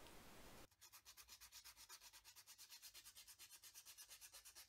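Sandpaper rubbed by hand over a small aluminium part: faint, quick, even strokes, about ten a second, starting about half a second in.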